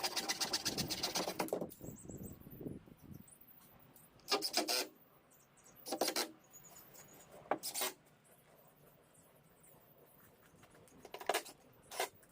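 A quick run of rasping, scraping strokes, then five short separate scrapes spread over the rest, with faint bird chirps in the background.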